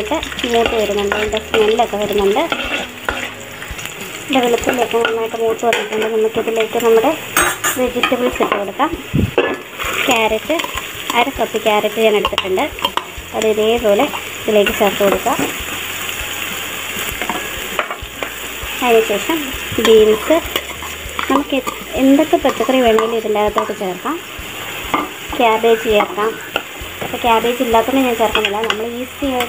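A slotted metal spatula stirs and scrapes around a metal pan while garlic, ginger and green chilli sizzle in hot sunflower oil. Diced carrots and then sliced green beans are tipped in and stirred through the sizzling oil.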